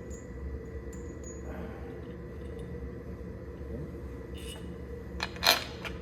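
Sharp metal clinks in an engine workshop, one faint and then one loud near the end, over a steady machine hum.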